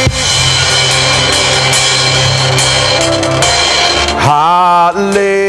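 Live worship band playing a sustained chord with drum kit and cymbals. About four seconds in, a man's voice comes in over the band, singing a held note with vibrato.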